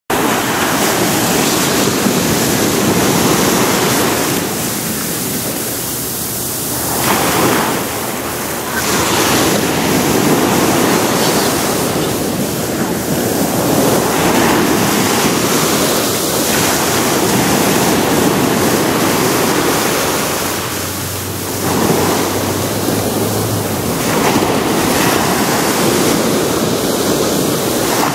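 Ocean surf breaking on a sandy beach: waves crash and wash up the shore in repeated surges, the rush rising and falling as each one comes in.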